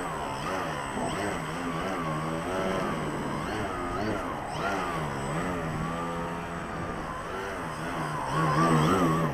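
Electric motor and propeller of a 35-inch Balsadust Cap 232 RC aerobatic plane hovering low, its pitch rising and falling with constant throttle changes. It grows louder near the end.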